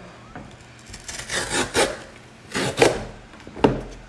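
FedEx cardboard shipping box being handled, its surface rubbing and scraping in several short strokes.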